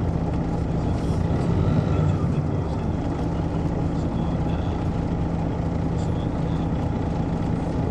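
Detroit Diesel Series 60 diesel engine of an MCI D4000 coach running steadily, a low drone heard from inside the bus.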